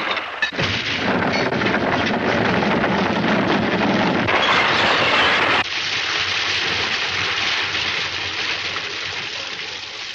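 Heavy chain rattling over a wooden hatch edge into a boat's hold: a long, loud clatter. About halfway through it cuts off suddenly into a lower, noisy rumble that slowly fades.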